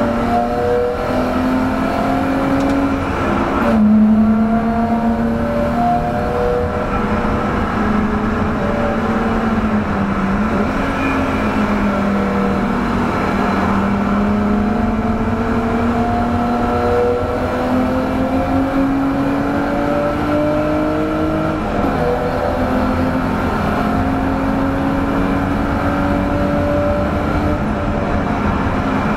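1989 BMW E30 325i's 2.5-litre straight-six, heard from inside the stripped cabin, pulling hard on track. Its pitch climbs slowly for long stretches and falls sharply a few times, over a steady rumble of tyre and road noise.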